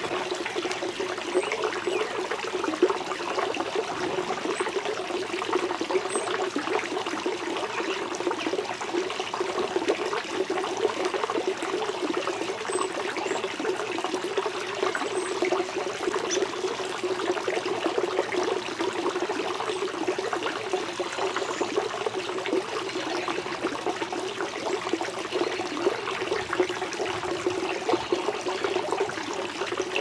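Small pond waterfall, water falling and splashing steadily into the pond.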